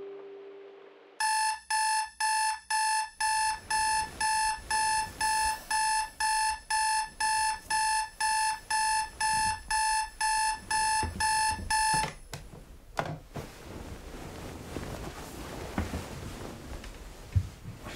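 Electronic alarm beeping in a steady high pulse, about two beeps a second, waking a sleeper; it cuts off suddenly about two-thirds of the way through. Bedding rustles and shifts afterwards as he throws back the duvet.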